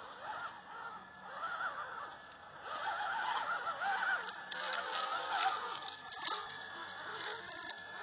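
Electric motor and geartrain of an SCX10 6x6 RC crawler whining as it crawls over the ground, the pitch wavering up and down with the throttle and growing louder a few seconds in. From about halfway, sharp crackles of leaves and twigs under the tyres.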